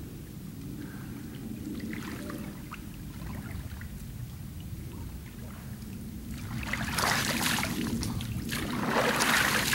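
Water sloshing and splashing close to the microphone over a steady low rumble, swelling into two louder splashes about seven and nine seconds in.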